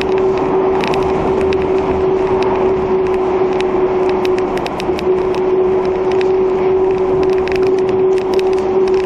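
Yurikamome rubber-tyred automated guideway train running at speed, heard from inside the front car: a steady rumble of tyres on the guideway with a constant hum at one pitch and frequent sharp clicks and ticks.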